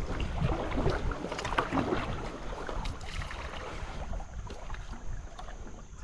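Paddle strokes and water splashing beside a small paddled boat, with scattered small knocks, louder at first and easing off.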